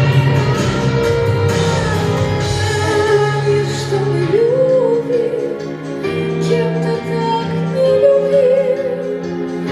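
A woman singing a sustained melodic line with vibrato over full instrumental accompaniment.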